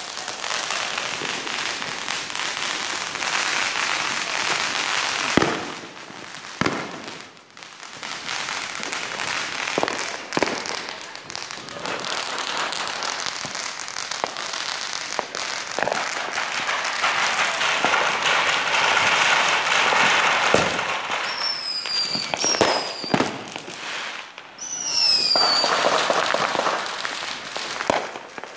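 Consumer fireworks going off: a ground fountain's steady hissing, crackling spray, with sharp bangs and pops throughout. Near the end come a few short whistles that fall in pitch.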